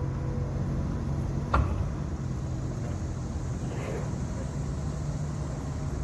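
Heavy crane's diesel engine running steadily, with a single sharp knock about a second and a half in.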